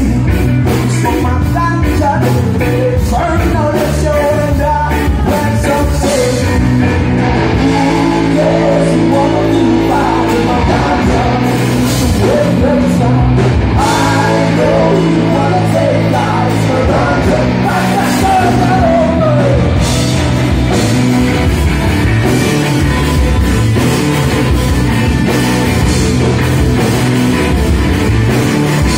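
Live rock band playing a song: electric guitars and a drum kit, with a voice singing over them.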